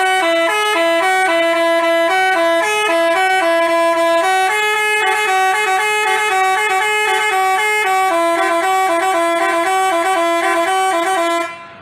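Basuri telolet bus horn playing a tune of changing notes. The melody runs without a break and cuts off shortly before the end.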